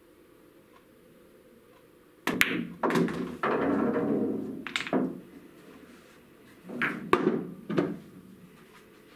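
A pool cue strikes the cue ball with a sharp click, the cue ball clacks into the object ball about half a second later, and the pocketed ball rumbles away through the table's ball-return channel for about a second. A second group of knocks and clunks comes a few seconds later.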